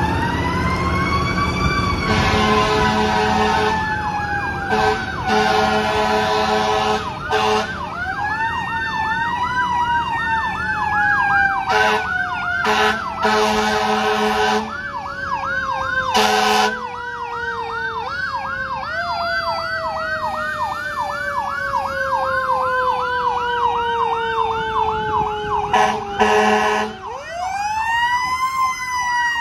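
Fire apparatus sirens and air horns sounding together. A mechanical siren winds up and coasts slowly down in long falling wails, once at the start and again near the end. An electronic siren yelps at about two to three sweeps a second, and air horns give several blasts, some held for a second or two.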